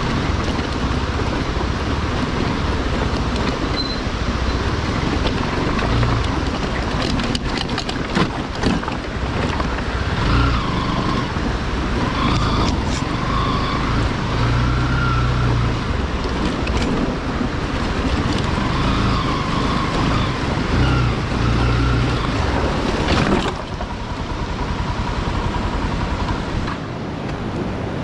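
Bajaj Pulsar motorcycle engine running at low speed over a loose rocky dirt track, its note rising and falling several times, under wind rushing on the microphone. About three quarters of the way through, the engine sound drops away, leaving a steady rushing noise.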